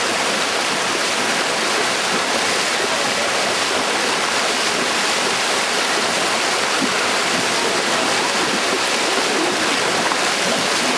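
The Acheron river's water rushing: a steady, even rush of flowing water with no pauses.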